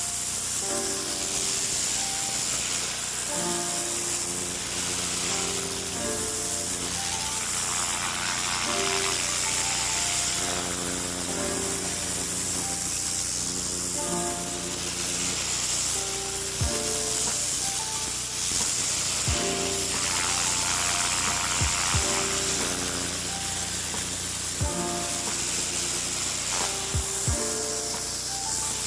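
Background music with a melody over the steady hiss of pressure-washer spray.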